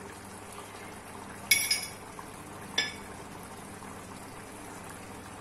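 Sharp, ringing kitchen-utensil clinks: a quick double clink about one and a half seconds in and another just before three seconds, over a steady low hum.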